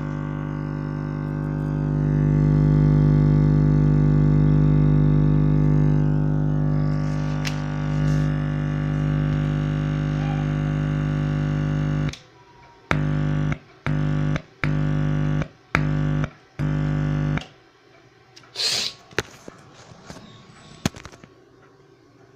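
Loudspeaker giving out a steady low electrical buzz that cuts out and back in about five times, then stops, followed by a few sharp clicks.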